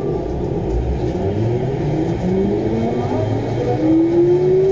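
Rubber-tyred VAL 208 metro train accelerating away from a station, its traction motors giving a whine that climbs steadily in pitch, several tones rising together over a low running rumble.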